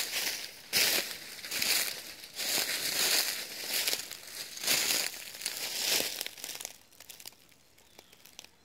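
Footsteps crunching through dry fallen leaves, one step every half second to a second. The steps stop about seven seconds in, leaving only a few faint crackles.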